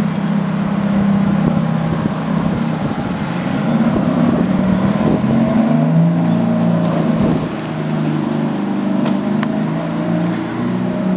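Ferrari F430 Spider's V8 running at low revs as the car pulls away on light throttle, its note stepping up and down a little but never floored.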